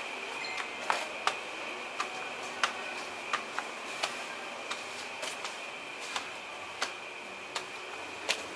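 Night ambience: a steady high-pitched insect drone, with sharp single clicks sounding irregularly about once or twice a second.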